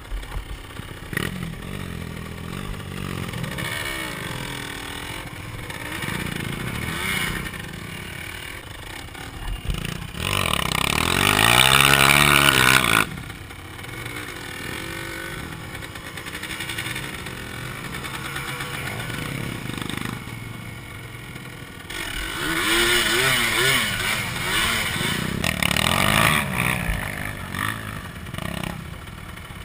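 Quad engines running along a rough trail. Hard throttle surges of a quad bike rise to a loud rev twice, for about three seconds some ten seconds in and again for several seconds past the twenty-second mark, between stretches of lower, uneven engine running.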